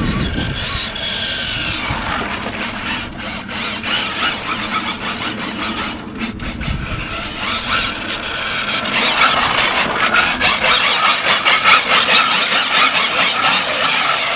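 High-pitched whine of a 1:6 scale RC car's 2250KV brushless electric motor running on a 4S lipo, rising and falling in pitch as the car accelerates and slows. From about nine seconds in, the tyres squeal and scrub on the asphalt as the car drifts.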